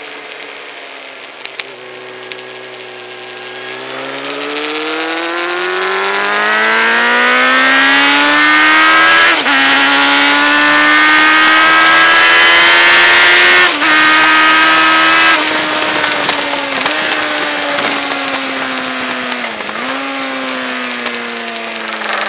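Motorcycle engine under hard acceleration on a track straight: the note climbs and falls back sharply twice as it shifts up, about nine and fourteen seconds in. The throttle then closes and the engine winds down with short dips in pitch as it shifts down for the corner. Wind rush rises and falls with the speed.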